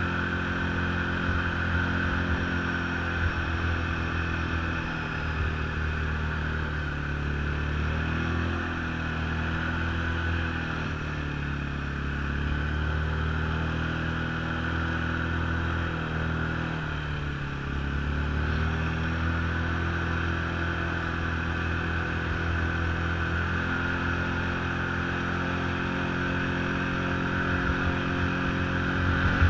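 Snowmobile engine running steadily under way, its pitch easing down and climbing back three times in the middle, with a steady high whine above it.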